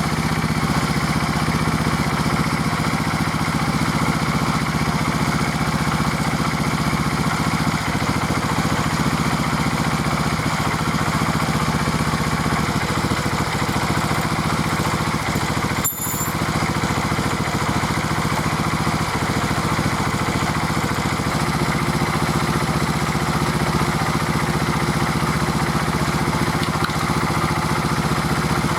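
Honda RTL250F trials motorcycle's single-cylinder four-stroke engine idling steadily, with one brief break about halfway through.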